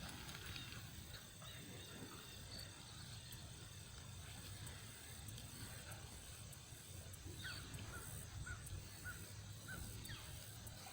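Faint outdoor ambience with a low rumble, and a run of about six short distant calls about seven seconds in.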